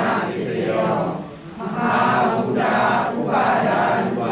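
A group of voices chanting Pali scripture in unison, in long held phrases with a short break about a second and a half in.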